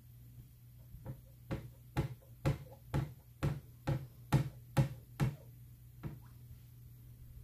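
A run of about ten sharp knocks, evenly spaced at roughly two a second, followed by one fainter knock a second later.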